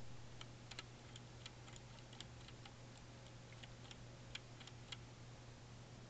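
Near silence with a low steady hum and faint, irregular light clicks, a dozen or so scattered through.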